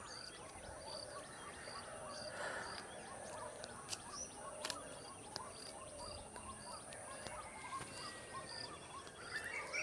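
Rural outdoor ambience: many birds chirping, with a short high note repeating about every half second and a steady high whine. Two faint sharp ticks come about four seconds in.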